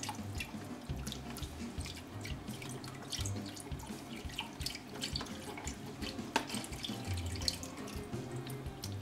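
Chicken broth pouring from a carton into an electric pressure cooker's inner pot over raw chicken breasts: a steady trickle broken by irregular small splashes.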